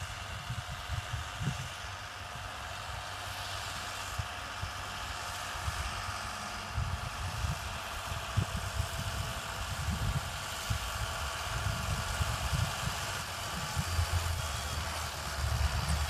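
Massey Ferguson 6480 tractor's six-cylinder diesel engine working steadily under load while pulling a plough through the soil. It grows louder near the end as the tractor comes close.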